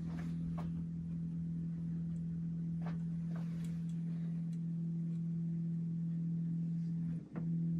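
Z-axis stepper motors of a LowRider v3 CNC humming steadily as they lower the router toward a touch plate during a probing run. The hum breaks off for a moment near the end, then starts again.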